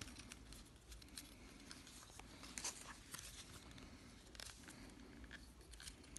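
Faint clicks and scrapes of plastic as hands work a GoPro HERO7 Black's mounting frame and bracket, with one slightly louder click about two and a half seconds in.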